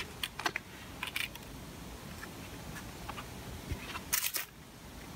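Scattered short clicks and scuffs of footsteps and hands handling a small object, over a steady background hiss, with the loudest cluster of scraping clicks about four seconds in.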